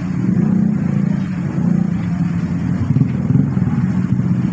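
Motorcycle and car traffic crossing a railway level crossing: a dense, steady mix of small engines running and pulling away.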